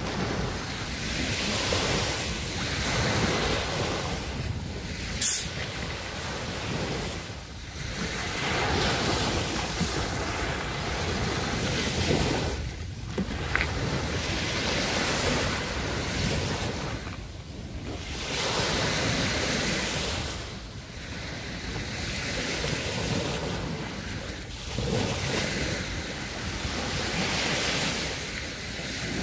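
Small waves breaking and washing up on a sandy beach, the surf swelling and ebbing every few seconds, with wind on the microphone. A single sharp click about five seconds in.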